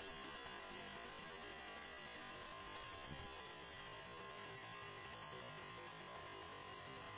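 Faint, steady hum and hiss with a thin high tone held throughout; no distinct sounds from the puppy's play stand out.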